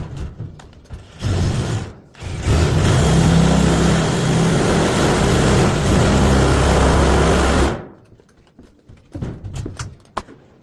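Drill running a sheet-metal cutting attachment through sheet metal: a short burst about a second in, then about five seconds of steady cutting that stops sharply, followed by a few light clicks.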